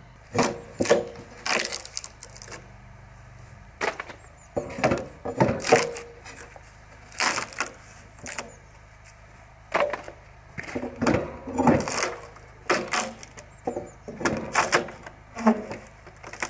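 Old boards being pried and knocked off a moisture-damaged wooden floor joist: a string of irregular cracks, creaks and knocks of splintering wood and nails giving way.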